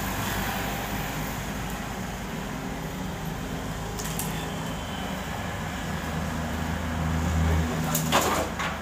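Komatsu PC78US mini excavator's diesel engine running with a steady low drone as the machine swings a loaded bucket, growing louder about seven seconds in. Near the end there is a short loud clatter as the bucket dumps rubble into the dump truck's bed.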